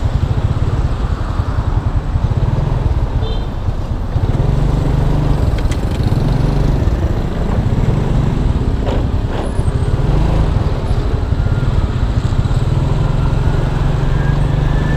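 Small motor scooter's single-cylinder engine running under the rider, the throttle opening and easing off several times, with road and wind noise. The engine stalls when the throttle is released, so it is kept on the gas.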